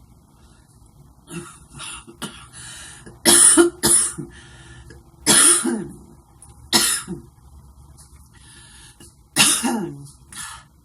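A woman coughing in a fit, with several smaller coughs and about five loud, harsh ones starting about a second in. It is the cough that vaping an e-cigarette brings on for her.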